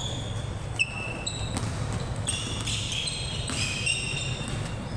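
Basketball game on an indoor court: sneakers squeak sharply on the floor again and again, and a ball bounces once about a second in, over a steady low rumble.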